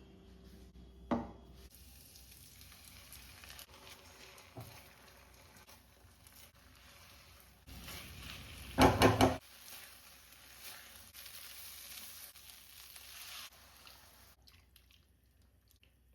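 Food sizzling in a frying pan while being stirred, with a single knock about a second in and a quick clatter of about four strikes, the loudest sound, near the middle. The sizzle dies away a few seconds before the end.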